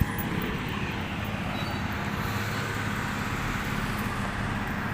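Engine of a moving vehicle running steadily at an even speed, heard from on board, with road noise.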